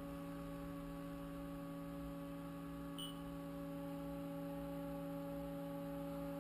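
Steady electrical hum of a powered-up Haas CNC vertical mill standing at idle, holding several fixed pitches, with a faint short high tone about three seconds in.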